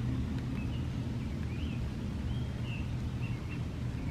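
A few faint bird chirps, short notes that rise and fall, over a steady low rumble.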